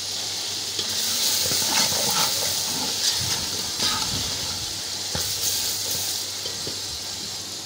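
Tomato, onion and chilli masala sizzling in hot ghee in a large aluminium pot, a steady high hiss. A metal ladle stirs it, giving a few short scrapes and knocks against the pot.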